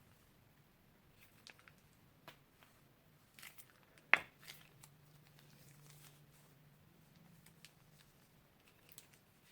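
Quiet handling of crunchy slime and plastic piping bags: scattered small crackles and clicks, with one sharp, louder snap about four seconds in.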